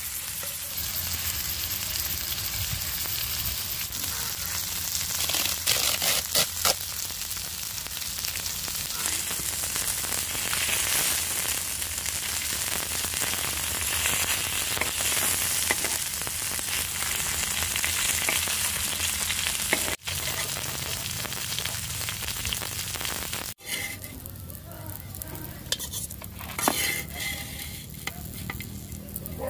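Whole climbing perch sizzling as they shallow-fry in hot oil in a flat black iron pan, with a metal spatula scraping and clicking on the pan as the fish are turned. The sizzle is softer in the last few seconds.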